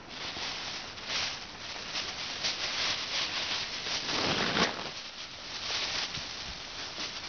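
Thin clear plastic bags crinkling and rustling as they are handled close to the microphone, in uneven swells with the loudest handling about four seconds in.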